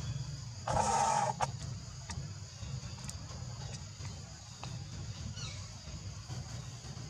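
A short animal call about a second in, over a steady high-pitched drone and a low rumble. A faint falling chirp follows near the middle.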